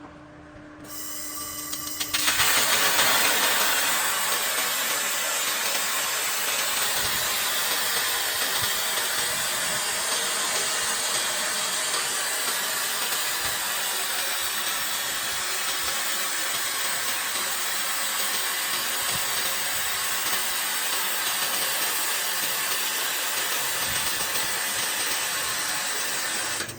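6 kW handheld laser welder running a weld on 10 mm stainless steel: a steady, loud hiss that builds up over the first two seconds, holds evenly, and cuts off suddenly at the end as the weld stops.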